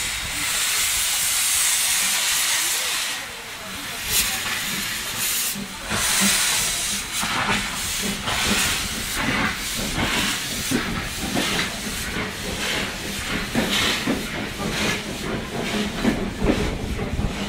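Narrow-gauge steam locomotive 490.039 letting off a steady hiss of steam, then pulling away: about four seconds in, its exhaust beats begin, about two chuffs a second with hissing between them.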